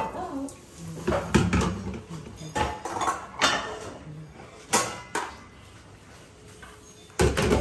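Bowls, a plate and a strainer being handled and set down at a stainless-steel kitchen sink while washing up: a series of separate knocks and clatters, then a louder knock near the end.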